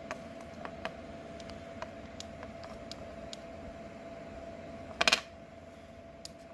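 Handling noise from fingers and fingernails on a small mineral specimen: scattered light clicks and taps, with a short burst of louder clicks about five seconds in. Underneath, a steady faint hum with a thin steady whine.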